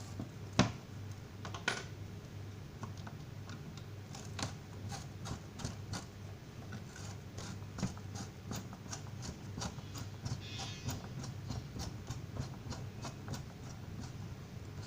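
Irregular light clicks and taps, like small hard parts being handled, over a steady low hum; the clicks come thicker in the second half.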